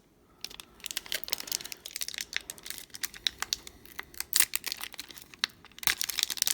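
A 1992-93 Upper Deck basketball card pack wrapper being handled and torn open, with dense, irregular crinkling and crackling. It begins about half a second in and is loudest twice, in the second half.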